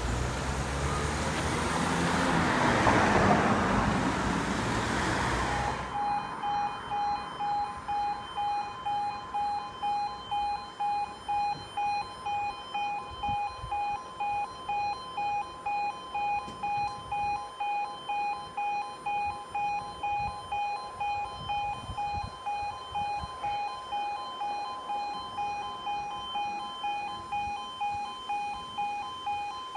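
A car drives over the level crossing, its tyre and road noise swelling and fading over the first few seconds. About six seconds in, the crossing's electronic two-tone warning alarm starts and pulses steadily about twice a second: the warning sequence for an approaching train, with the barriers coming down.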